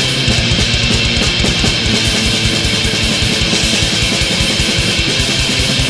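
Black metal: distorted electric guitars and a drum kit with a fast, steady kick-drum pulse.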